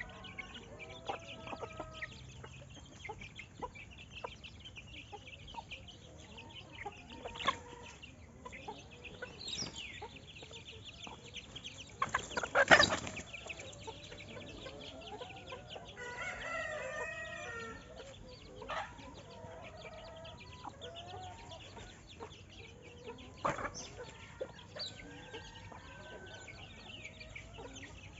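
Farmyard chickens clucking, with a rooster crowing, over steady high chirping. One loud, sudden sound about twelve seconds in stands out above the rest.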